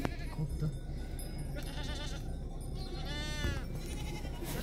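A goat bleats once, a short call about three seconds in, over a steady low rumble.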